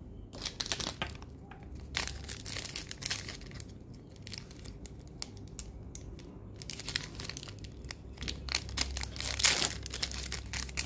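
A thin clear plastic wrapper crinkling and tearing as it is handled and pulled open by hand: an uneven run of crackles, loudest about nine and a half seconds in.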